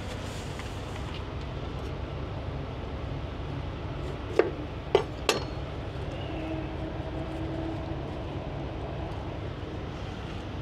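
A knife cutting a lime against a cutting board: three sharp knocks in quick succession about four and a half seconds in, over a steady low engine hum.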